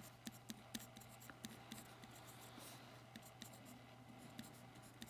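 Pencil writing on lined notebook paper: faint, quick scratches and taps of the pencil tip as the characters are written.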